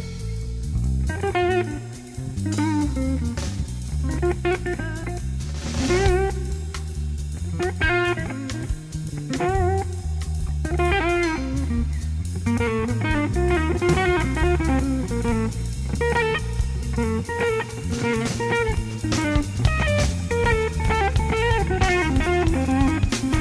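Instrumental band music: an electric slide guitar plays a gliding, wavering blues-jazz melody over bass and drum kit.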